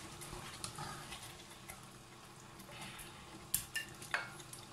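Faint ticking bubbles of artichokes in tomato sauce simmering in a frying pan, with a few light clicks of a plastic slotted spoon against the pan and plate about three and a half to four seconds in.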